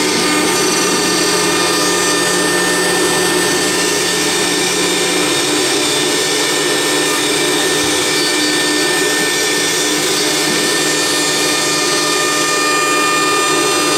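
CNC router spindle carving a wooden column turning in the rotary axis: a steady whine from the spindle over the rasp of the bit cutting wood. A lower hum under it stops about five seconds in.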